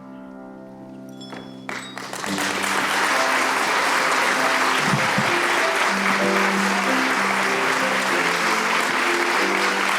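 The last held chord of the closing song fades, then audience applause breaks out about two seconds in and carries on, with instrumental music playing beneath the clapping.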